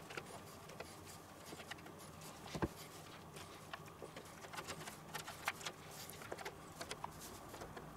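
Giant mushroom cap being hollowed out by hand and with a spoon: faint scraping and many light clicks as pieces of flesh and gills are broken off and dropped onto a wooden cutting board, with one louder knock about two and a half seconds in.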